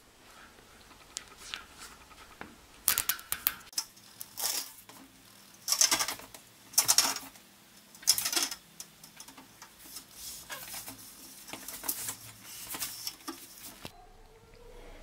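Handling noise from metal track parts: a series of sharp metallic clicks and clacks at irregular intervals, loudest and most frequent in the middle.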